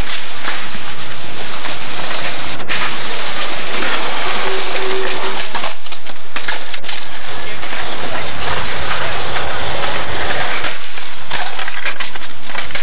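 Skateboarding on concrete and stone steps heard through an overloaded camcorder microphone: a constant harsh, gritty noise of wheels rolling and boards knocking, with a few brief drop-outs.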